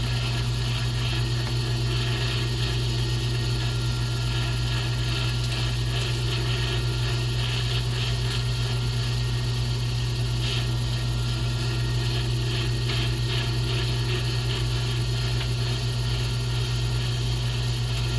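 A pen-turning lathe running steadily, with a strong constant low hum and a hiss of noise over it, as pen blanks are worked on it.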